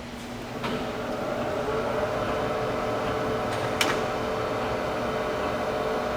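Gap-bed engine lathe running under power: its gear whine changes pitch, rising about two seconds in and settling to a steady whine. There is a click under a second in and a sharper click near four seconds, as the feed is worked.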